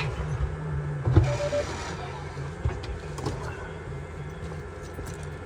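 A steady low mechanical hum, with a few light knocks and clunks over it.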